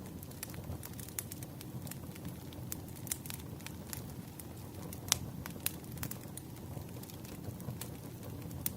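Wood fire crackling, with a steady low rumble and irregular sharp pops of burning firewood. The loudest pop comes about five seconds in.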